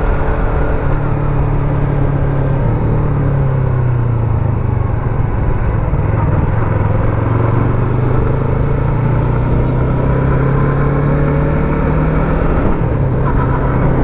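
Yamaha MT-03's 321 cc parallel-twin engine running at a steady cruise, heard from the rider's seat, with a near-constant engine hum that shifts only slightly in pitch.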